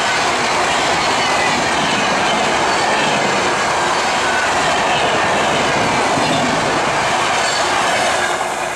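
Indian Railways passenger train of LHB coaches passing close by at speed: a steady, loud noise of wheels running on the rails, easing off slightly near the end as the last coach goes by.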